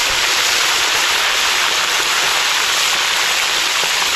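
Food deep-frying in a pot of hot oil: a loud, steady sizzle with a few faint pops.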